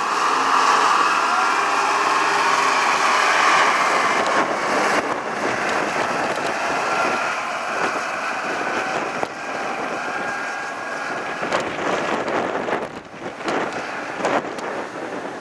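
Caterpillar IT18B wheel loader's diesel engine running as the machine drives off across gravel, with a whine that rises and falls in the first few seconds. The sound fades as it moves away, and wind buffets the microphone near the end.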